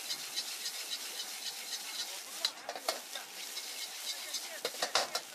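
Fried rice sizzling in a hot wok while a metal ladle scrapes and tosses it, with a steady hiss and quick scraping ticks. The ladle knocks sharply against the wok a few times, loudest around the middle and near the end.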